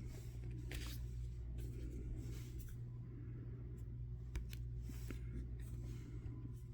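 Trading cards being handled and flipped through: faint scattered slides and clicks of card stock, over a steady low electrical hum.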